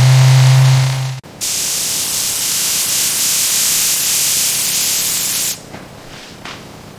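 A loud, low, steady hum cuts off abruptly about a second in. A steady hiss like spraying follows and lasts about four seconds, then drops away to a much quieter background.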